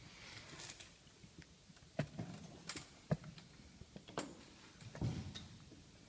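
Plastic chess pieces knocked down on the board and the chess clock's button pressed during fast play: five sharp clacks, roughly a second apart, in the latter part.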